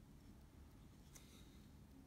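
Near silence: room tone, with one faint tick a little past halfway.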